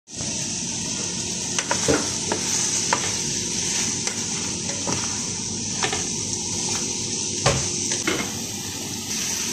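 Squash cubes with onion and garlic sizzling as they sauté in an aluminium pan, a steady frying hiss. A cooking utensil knocks and scrapes against the pan several times as it is stirred, the loudest knock about three quarters of the way through.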